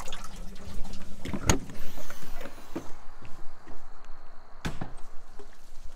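Someone walking out of a truck camper: two sharp knocks, about a second and a half in and again near the end, with footsteps and handling rustle between them.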